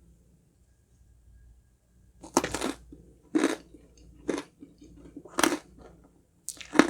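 Close-up chewing of a honeycomb crunch cake: quiet for about two seconds, then crisp crunches about once a second.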